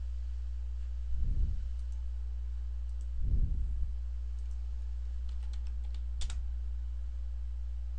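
Steady low electrical hum, with two soft low thumps in the first half and a few faint clicks about three-quarters of the way through, typical of computer mouse and keyboard handling.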